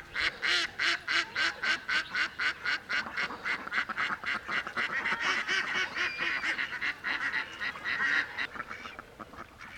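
Domestic ducks quacking in a long, rapid run of about four quacks a second, thinning out near the end.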